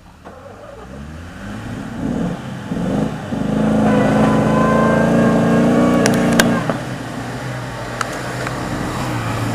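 Off-road 4x4's engine revving hard while the vehicle is stuck in deep mud: the revs climb over the first few seconds, hold high for about three seconds, then drop back to a lower run. A few sharp knocks come around the middle.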